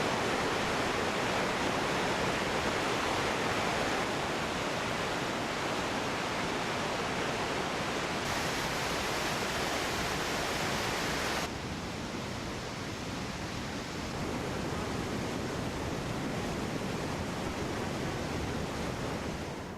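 Steady roar of Eagle Falls, water pouring down close by. The sound shifts abruptly a few times, dropping in level about halfway through.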